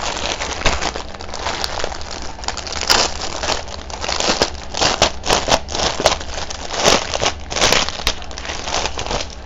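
Clear plastic bag of small diamond painting drill packets crinkling and rustling as hands handle it and pull it open, in irregular crackly bursts.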